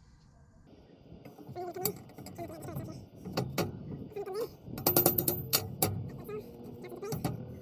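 Steel parts of an unwelded backhoe quick hitch knocking and clanking together as the hitch and bucket pins are handled: a series of sharp metallic knocks, some ringing briefly, with the loudest cluster about five seconds in.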